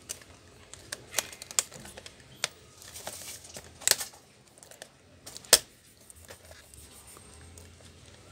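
Irregular sharp plastic clicks and snaps from a Lenovo Y460 laptop's top panel above the keyboard as it is pried and pressed at by hand. The loudest snap comes about five and a half seconds in.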